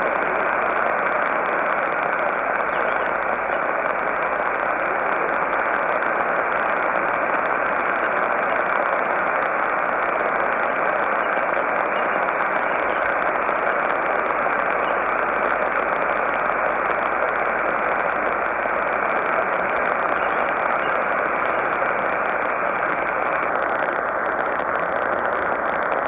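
Steady, muffled shortwave static from a Sony ICF-2010 receiver tuned to 12210 kHz AM in narrow sync mode, with no clear programme audible through the noise.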